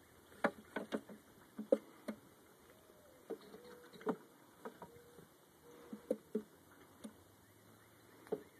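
Wooden hive frames knocking and clacking against each other and the hive box as they are slid apart and lifted out of an empty new hive body: a string of light, irregular wooden knocks.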